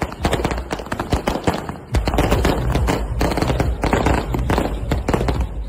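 Fireworks going off close by: a dense, rapid string of crackling pops and bangs, with a steady low rumble joining about two seconds in.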